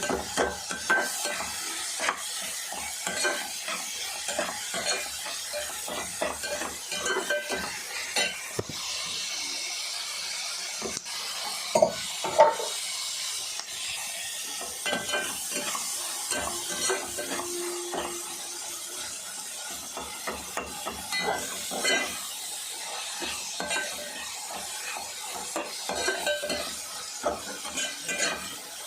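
Onions and green chillies sizzling in hot oil in a pan as they are fried until golden. They are stirred throughout, the utensil scraping and clicking against the pan, with two louder knocks about twelve seconds in.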